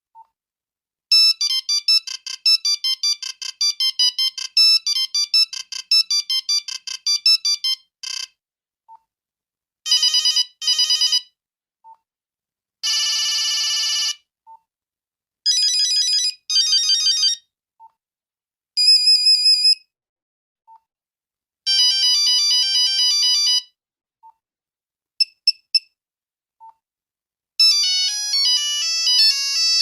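Nokia 5110 monophonic ringtones playing one after another in buzzy electronic notes. A quick melody runs for about seven seconds, then come short groups of beeps and trills with pauses between them, a steady buzz, two falling chirps, and another melody starting near the end.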